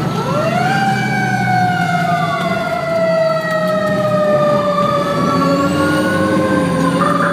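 Fire engine siren heard from inside the cab. It winds up quickly at the start, slides slowly down in pitch for several seconds and rises again near the end, over the truck's engine drone.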